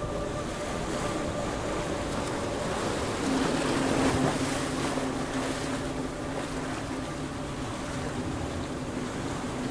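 Ocean water washing and surging over a rocky shore, swelling a few seconds in. A steady low hum joins about three seconds in and holds.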